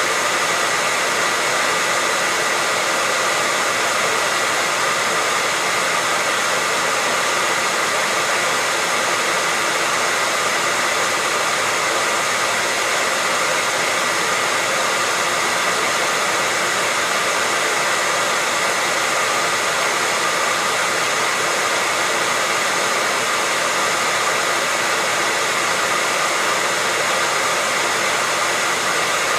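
Hair dryer running continuously at a constant speed: an even, rushing whir of blown air with a thin steady whine.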